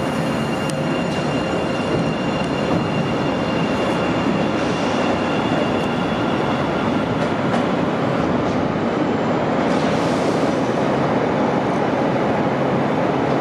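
CRRC-built CTA 7000 Series 'L' train running along the track: a continuous, even rumble of wheels on rail with a few faint steady high tones over it.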